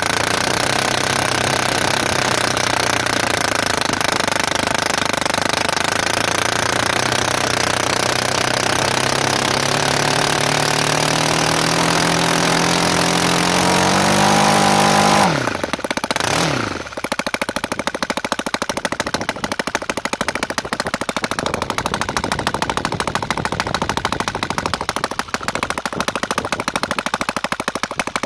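Torqpro 70 model engine running on a test stand with no muffler, its speed climbing steadily over about fifteen seconds. It then drops back sharply and runs on at a lower, rapidly pulsing speed.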